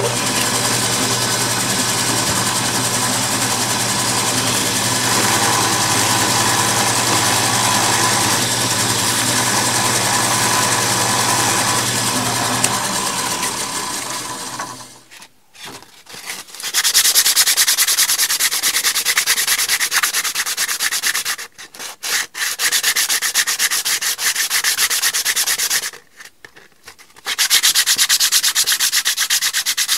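Drill press running with a steady low hum as it spins a stacked birch-and-poplar wood ring on a mandrel. About halfway through the sound drops out briefly, then sandpaper is pressed against the spinning ring: a loud, bright rubbing with two short pauses.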